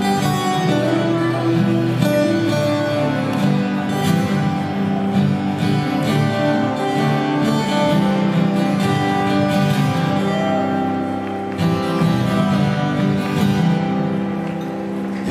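Live acoustic music: two acoustic guitars playing a slow folk ballad, heard through the PA of a large hall.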